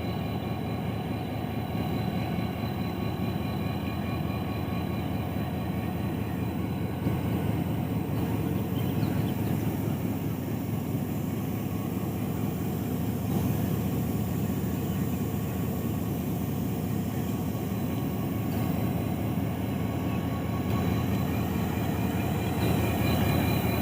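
Pakistan Railways HGMU-30 diesel-electric locomotive engine running steadily, with a low, even rumble that grows a little louder over the last few seconds.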